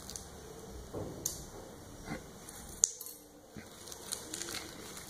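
A small plastic packet being handled and torn open by hand: scattered crinkles and light clicks, with one sharp click just under three seconds in.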